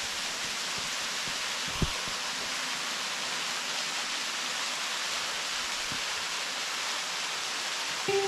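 Waterfall: a thin stream of water falling down a rock face and splashing into a pool, giving a steady, even rushing hiss. One light knock sounds about two seconds in.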